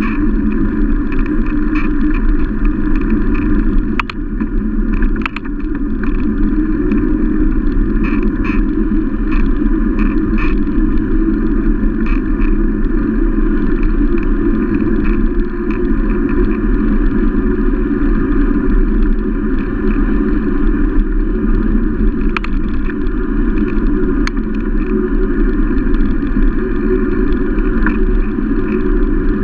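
Steady wind buffeting and tyre-on-asphalt rumble picked up by a camera mounted on a moving mountain bike, with a few brief knocks from road bumps or the bike.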